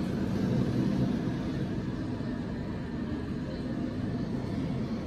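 Steady low rumble of background noise, a little louder in the first second, with no distinct events.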